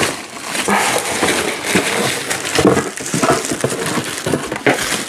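Plastic packaging bag crinkling as an item wrapped in it is handled and lifted out of a cardboard box, with scattered small knocks.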